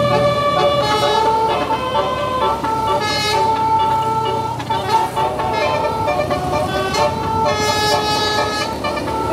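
Bus 'telolet' horn: a set of air horns playing a tune, held notes that jump to a new pitch every second or so.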